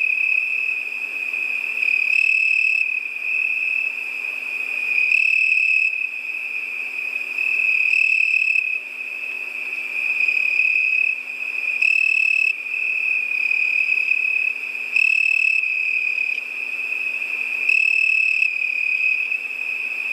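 Crickets singing at night in a steady, continuous high trill, with a louder trill coming in briefly about every three seconds.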